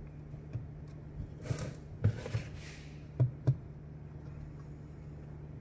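A few light knocks and clicks of metal turbocharger parts being handled on a metal workbench, over a steady low hum.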